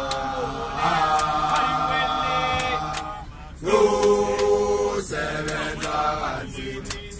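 A group of men singing a gwijo chant a cappella in long held notes. The singing breaks off briefly about three seconds in and comes back louder.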